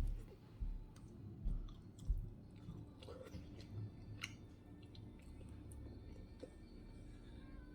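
Close-miked chewing of a burger with the mouth, with soft wet clicks; the chewing is heaviest in the first couple of seconds, then grows softer.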